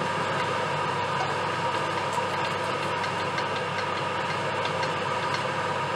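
Octopus searing in a stainless steel pot in its own juices, a steady sizzle, with a few faint ticks of a knife and fork working against the octopus and pot.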